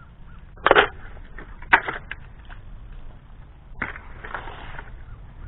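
A few short, sharp crunching cracks, the first two about a second apart and a third nearer the end, followed by a brief rustle.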